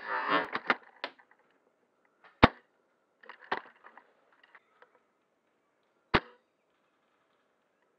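VSR-10 spring-powered bolt-action airsoft sniper rifle firing: two sharp cracks about two and a half and six seconds in, with a short run of smaller clicks and rattles between them. Rustling of movement in the first second.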